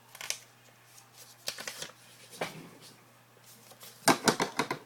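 Paper being handled at a desk, post-it notes being readied for writing names on: a few light rustles and clicks, then a quick run of sharp scratchy strokes near the end.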